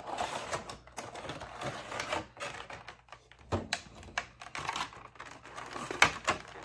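Funko Pop cardboard window box and its plastic insert being handled as the figure is taken out: irregular crinkling and light clicks, with one sharper click about six seconds in.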